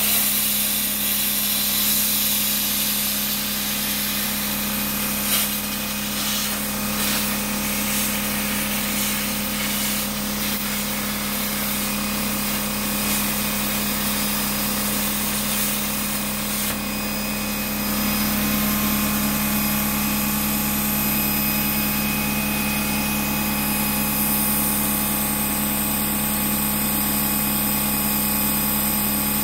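CNC plasma torch cutting sheet metal: a steady hiss of the plasma arc with a constant buzzing hum underneath. The sound shifts slightly about 17 seconds in, and there is a single brief click about 5 seconds in.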